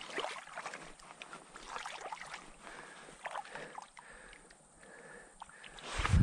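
River water splashing and gurgling, with many small irregular splashes. Wind rumble hits the microphone right at the end.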